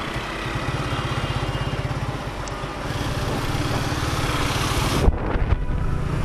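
Motor scooter engine running at riding speed with a steady pulse under wind and road noise. About five seconds in the sound cuts abruptly to a duller ride with less wind and a few knocks.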